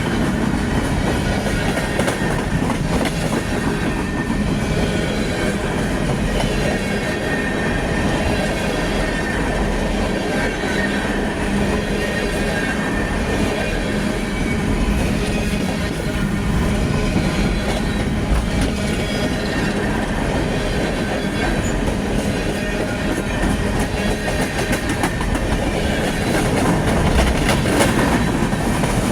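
Union Pacific coal train's cars rolling past, wheels clacking steadily over the rail joints with a faint high wheel squeal. It grows louder near the end.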